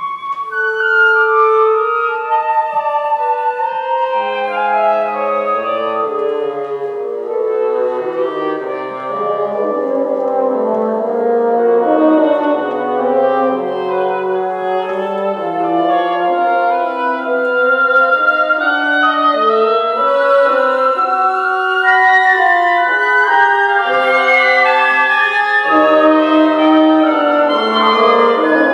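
Woodwind quintet of flute, oboe, clarinet, bassoon and French horn playing contemporary chamber music, several lines moving at once; it grows louder a few seconds in and the high parts thicken in the second half.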